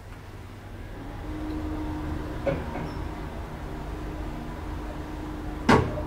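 Elevator car starting off and travelling down: a low rumble and a steady machine hum build up about a second in, with a click about halfway through and a sharp knock near the end.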